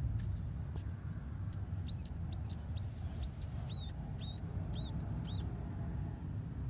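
Baby field mouse squeaking: about eight short, very high-pitched squeaks at roughly two a second, each rising and falling in pitch. They start about two seconds in and stop a little past halfway.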